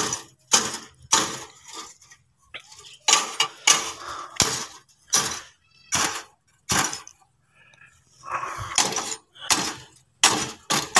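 A heavy chopper (toka) hacking at old wire mesh on a rusted steel cage frame: a string of sharp metallic strikes, about two a second, with a rougher scraping stretch about eight seconds in.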